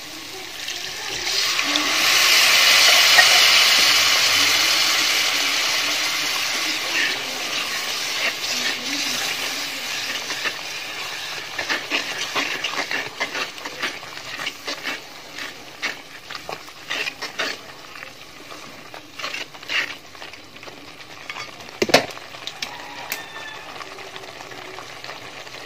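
Water poured into hot onion-and-spice masala in an aluminium pot sizzles loudly as it hits the hot oil, swelling about a second in and fading away over about ten seconds. A wooden spatula then stirs and scrapes the pot, with one sharper knock near the end.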